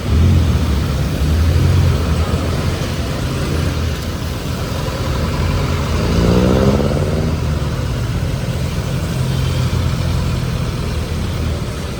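Street traffic: motor vehicle engines running close by with a steady low hum. About six seconds in, one vehicle accelerates and its engine pitch rises.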